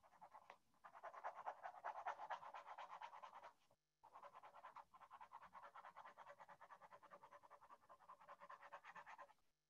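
Faint pen or marker scratching on paper in rapid back-and-forth strokes, like hatching or shading, in two long runs with a short break about four seconds in.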